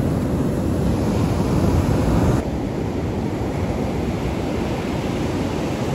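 Heavy ocean surf breaking on the shore, a steady rushing noise mixed with wind buffeting the microphone; the sound drops abruptly and a little quieter about two and a half seconds in.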